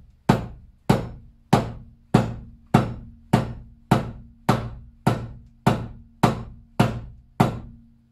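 A hammer strikes a large wheel-bearing socket, used as a driver, about thirteen times at an even pace of a little under two blows a second, tapping a part into an engine timing cover. Each blow is a sharp metallic knock, and a faint low ring lingers between them.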